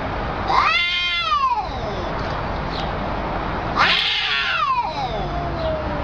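Cats yowling at each other in a face-off: two long, drawn-out wails, one about half a second in and another about four seconds in, each rising and then sliding down in pitch. This caterwauling is a cat's threat call in a territorial standoff.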